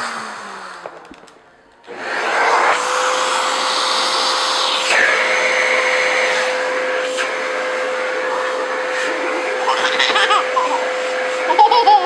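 Vacuum cleaner motor winding down with a falling whine, off for about a second, then switched back on and running steadily with a constant whine. A toddler laughs over it near the end.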